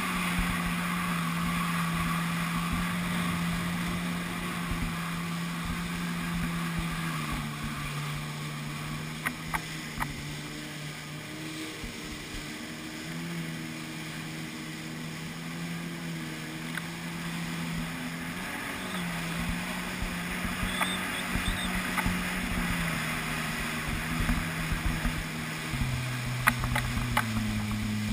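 Jet ski engine running at speed, its drone stepping up and down in pitch as the throttle changes and dropping clearly about three quarters of the way through, then climbing near the end. Under it is the steady hiss of water spray from the hull, with a few sharp knocks.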